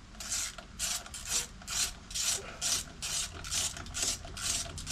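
A ratchet wrench clicking in quick back-and-forth strokes, about two a second, as a bolt is run down into the scooter's transmission case threads.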